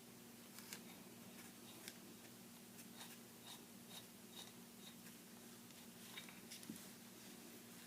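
Faint clicks and light taps of small metal pistol parts being handled on a bench, over a steady low hum. In the middle comes a short run of light ticks, about two a second.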